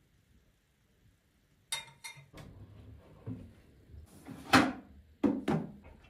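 A kitchen wall cabinet door is opened and things on its shelves are handled. A few light clicks come about two seconds in, then a louder knock about halfway, and two sharp knocks near the end.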